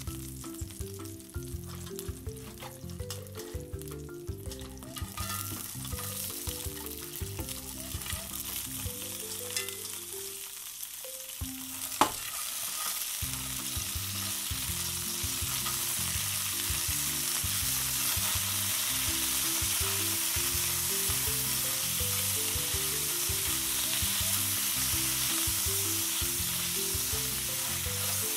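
Olive oil sizzling in a cast-iron skillet, quiet at first with garlic in the pan. It becomes a loud, steady frying sizzle about halfway through as crayfish are stirred in the hot oil with metal tongs. There is one sharp clack about twelve seconds in.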